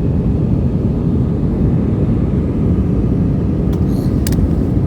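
Steady low rumble of an airliner's cabin noise, with two brief clicks about four seconds in.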